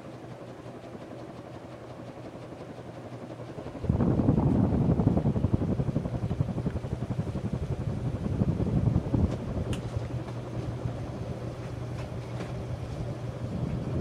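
Antique Emerson ceiling fan running, its motor giving a steady low hum. About four seconds in, the draught from the spinning blades starts buffeting the microphone, a loud, unsteady rumble over the hum.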